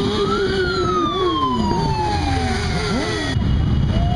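Quad bike and motorcycle engines revving as a column of riders passes, their pitch rising and falling, over a steady low road rumble. A high wailing tone rises briefly and then slides slowly down in pitch over about two seconds.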